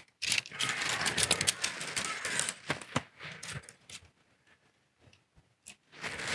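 Shock-corded metal tent pole sections rattling and clicking together as they are unfolded and snapped into place, with rapid clicks for the first few seconds, a short lull, then a lone click and more rattling near the end.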